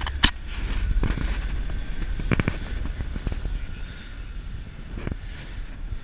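Blackhawk 125 paramotor's two-stroke engine popping and sputtering irregularly as it quits in flight, with a sharp pop about a quarter second in, a cluster of pops about halfway and the sound dying away toward the end. Wind rumbles on the microphone throughout. The owner puts the failure down to a carburetor problem.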